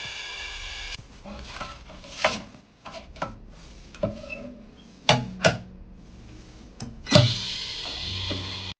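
A steady humming tone stops about a second in. It is followed by irregular sharp clicks and taps of small tools and parts being handled during a phone repair, two of them close together near the middle and a louder knock near the end.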